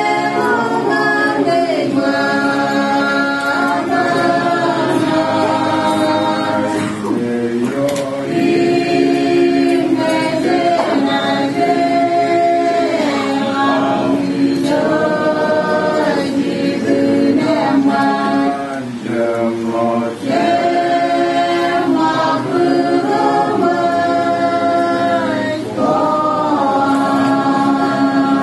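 A mixed group of men and women singing a hymn together a cappella, in long held notes with brief pauses between phrases.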